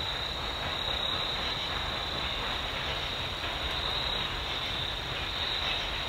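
Steam locomotive working in the distance as it approaches: a low, steady rumble under an even wash of noise, with a steady high-pitched drone throughout.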